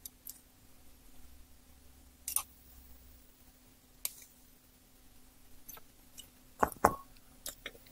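Small steel open-end wrenches clicking against small nuts as the nuts on a wire lead are turned: a handful of sharp metallic clicks, the loudest two close together near the end.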